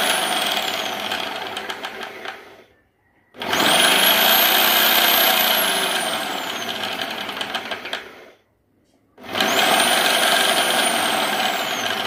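A 500-watt Bosch electric drill spinning a mixer-grinder jar's blades, run in three bursts: each time the motor whine climbs as it spins up, holds, then falls away as it is let go. It stops twice, about three seconds in and about eight seconds in, before starting again.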